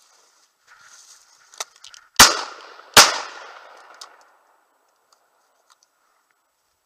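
Two shotgun shots fired in quick succession, less than a second apart, each followed by a fading echo: a double at a flushed woodcock that misses.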